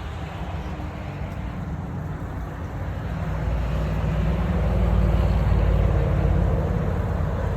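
Low rumble of a motor vehicle with a faint steady hum, growing louder about three seconds in and easing slightly near the end.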